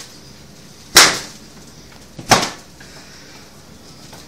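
Two sharp smacks about a second and a half apart, each dying away quickly.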